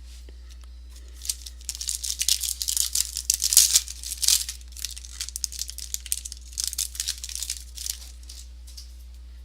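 Trading-card pack wrapper being torn open and crinkled by hand: a run of irregular crackling and tearing that starts about a second in, is loudest around the middle and dies away near the end.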